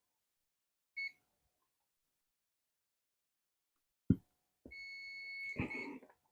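Digital multimeter's continuity buzzer beeping: one short beep about a second in, then after a sharp knock a steady high beep lasting over a second, with some clatter near its end.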